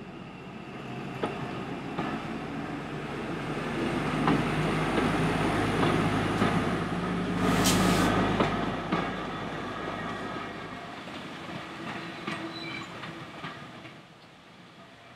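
A train passing by. A steady engine note and the clicking of wheels over the rails build to a peak about halfway through, with a short burst of noise at the loudest point, then fade away.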